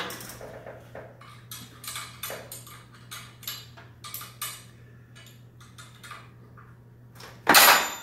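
Steel winding bars clinking and clicking against the winding cone of a garage door torsion spring as the spring is adjusted. Near the end a dropped wrench hits the floor with a loud clang and rings.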